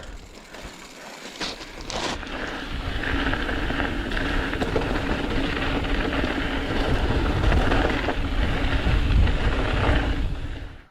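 Pikes Peak Cog Railway train running, a steady engine tone over rushing noise growing louder over several seconds as it approaches.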